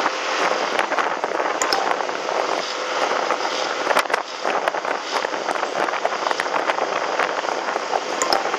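Steady rushing noise of riding a Yamaha motor scooter at about 40 km/h: wind and road noise mixed with the scooter's engine, with a few faint clicks.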